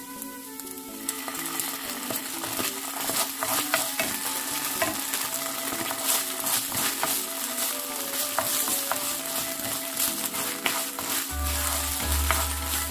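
Diced onion and sausage sizzling in a nonstick frying pan while a wooden spoon stirs and scrapes them around, with many small clicks of the spoon against the pan; ketchup is being stirred in.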